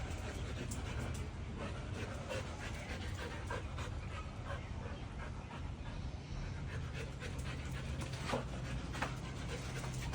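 A dog panting steadily, with a few light clicks scattered through it.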